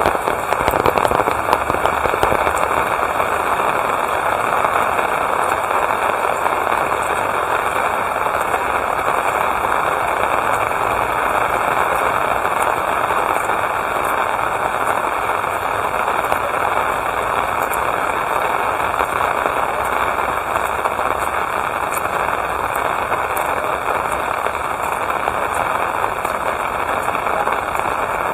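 Steady rain falling, with a dense patter of sharp drop impacts close by.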